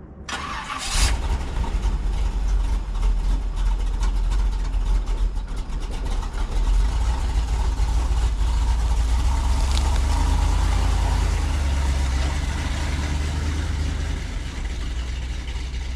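An engine starting about a second in, then running with a steady low rumble.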